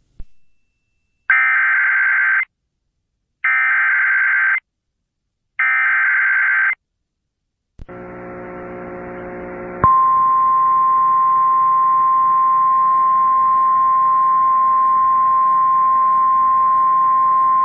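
Emergency Alert System SAME header: three bursts of harsh digital data screech, each about a second long with a second of silence between them. About two seconds of buzzy hum follow. About ten seconds in, the steady single-pitch 1050 Hz National Weather Service alert tone starts and holds over a faint hiss.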